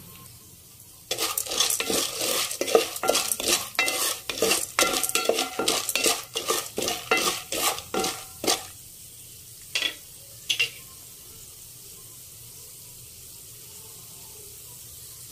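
A spatula stirs and scrapes unpopped popcorn kernels around a metal pot in hot oil, about three quick strokes a second, with the kernels rattling against the pot. The stirring stops about nine seconds in. Two single clicks follow, then only a faint steady sizzle of the oil as the kernels heat before popping.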